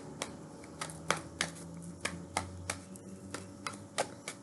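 Tarot cards being shuffled by hand: a run of irregular sharp clicks, two or three a second.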